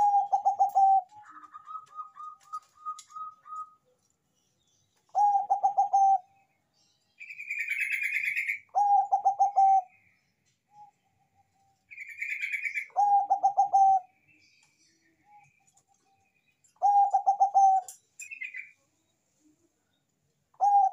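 Bangkok-strain zebra dove (perkutut) cooing: five phrases about four seconds apart, each a quick run of stuttered notes flowing into a held coo, and a sixth beginning right at the end. Fainter, higher chirps and a short rapid trill from another bird come between the phrases.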